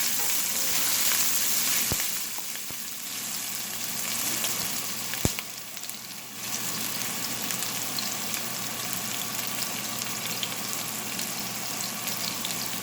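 Sliced ginger sizzling and crackling in hot oil in a pan, stirred now and then. There are two sharp knocks about two and five seconds in, and the sizzle drops briefly after the second one.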